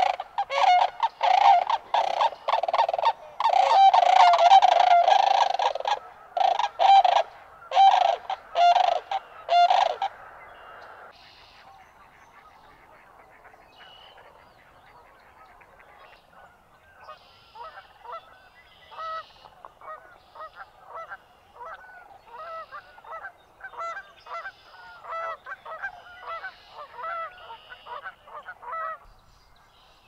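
Sandhill cranes calling: loud, repeated calls for the first ten seconds or so, then a lull, then a long run of fainter, quicker calls in the second half.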